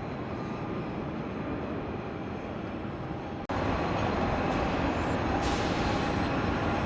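Steady traffic and vehicle noise, jumping abruptly louder about three and a half seconds in.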